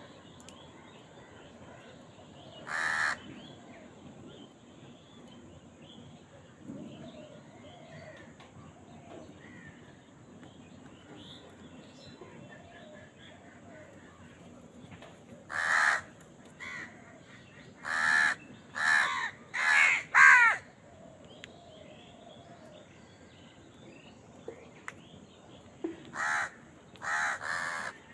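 Crow cawing in harsh, short calls: a single caw about three seconds in, a run of five or six caws later on, and two or three more near the end, with faint chirping of small birds behind.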